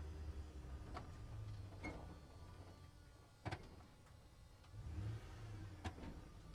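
Truck driving: a low engine and road rumble that swells and fades, with a few sharp clicks and knocks, the loudest about three and a half seconds in.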